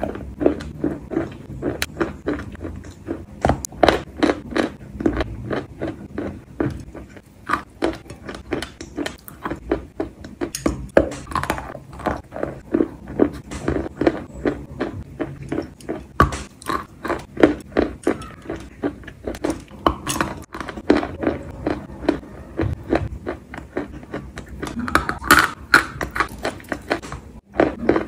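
Close-up chewing and biting of wet chalk coated in paste: an irregular run of crisp, wet crunches, several a second, with soft mouth sounds between bites.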